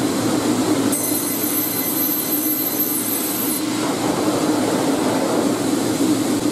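Automated sawmill processing line running with a steady, loud mechanical noise. A high-pitched whine comes in about a second in and stops about two and a half seconds later.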